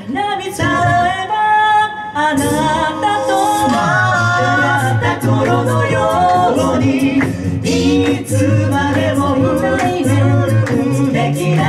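Five-voice a cappella group singing a pop song live through microphones: a female lead over close vocal harmonies, with a low sung bass line and regular beatboxed percussion ticks.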